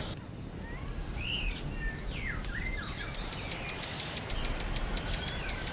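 Birds chirping: a few chirps and falling whistles about a second in, then a rapid, even run of short high ticks over a thin, steady high tone.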